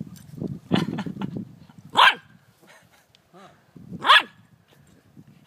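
Golden retriever puppy giving two short, high barks about two seconds apart. Softer rustling comes before the first bark.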